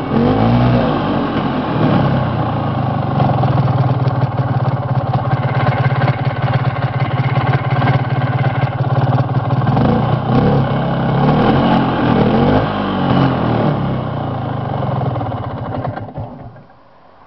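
Vintage Yamaha two-stroke snowmobile engine running under way, its revs rising and falling several times, then dying away about a second before the end.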